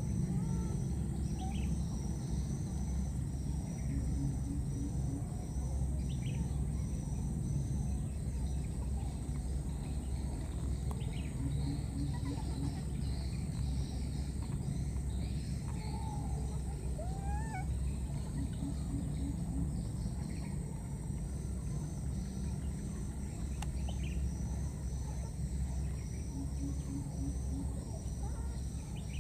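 Outdoor ambience of insects chirping in a regular pulsing rhythm about once a second over a steady high whine, with a few brief scattered chirps and whistles and a steady low rumble underneath.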